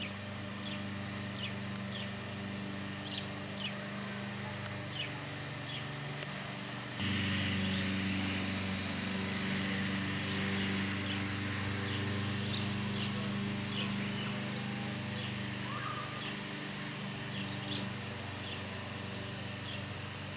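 A steady low motor hum that turns louder, with more hiss, about seven seconds in, while small birds chirp briefly again and again.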